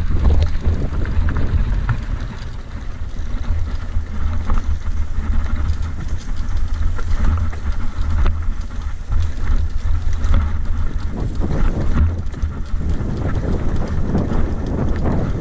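Mountain bike descending a rough dirt and stone trail: a steady wind rumble on the microphone with constant irregular rattling and clattering from the bike jolting over stones and ruts.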